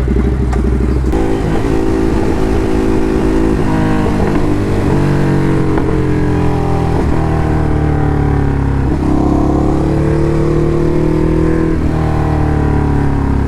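Ducati Hypermotard motorcycle engine under way, pulling up in pitch and dropping back several times as it shifts through the gears.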